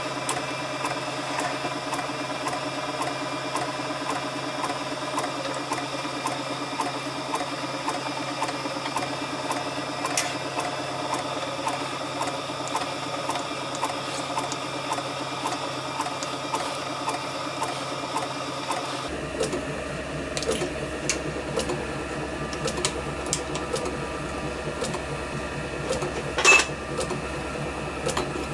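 Small bench lathe running with a steady hum and a regular light ticking. There is a sharp metallic clack near the end.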